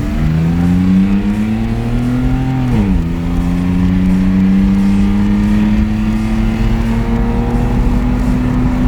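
BMW E36 328is straight-six engine accelerating under load, its pitch climbing. About three seconds in it drops sharply at an upshift, then rises slowly again in the next gear.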